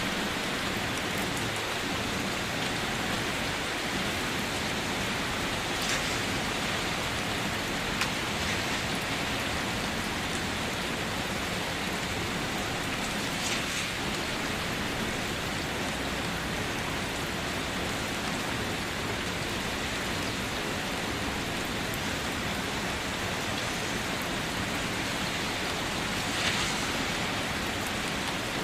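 Steady rain falling, an even hiss with a few louder drips here and there.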